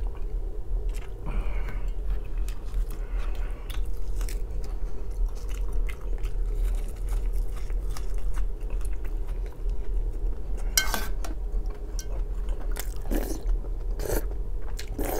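Close-miked chewing and biting as someone eats borscht with black bread: a run of small wet mouth clicks, with a few louder clicks near the end.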